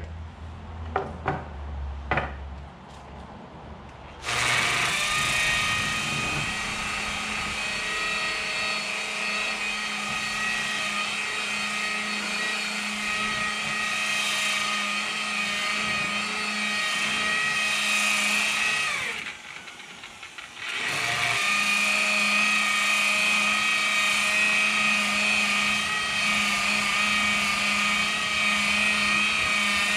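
Electric sander with 180-grit paper running on red oak stair treads. A few handling clicks, then the motor starts about four seconds in with a steady whine, winds down and stops just before the middle, and starts again about 21 seconds in.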